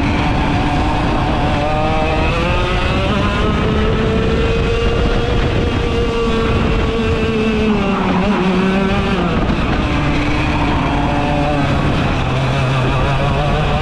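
Rok GP 125cc two-stroke kart engine heard onboard at full race speed. Its revs climb over the first few seconds and hold, fall away about seven to nine seconds in, then climb again.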